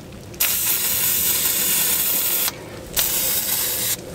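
Aerosol spray can hissing in two bursts aimed at a brake caliper's bleeder valve: a long spray of about two seconds, a short pause, then a spray of about one second.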